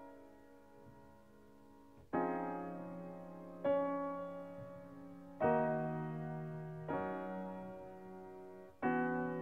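Slow ambient instrumental music: soft keyboard chords, a fading chord first, then five chords struck one after another from about two seconds in, each left to ring and die away.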